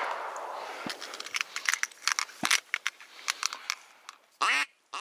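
A shotgun blast echoing away across the marsh, then a scatter of sharp clicks and rattles, and two short duck quacks near the end.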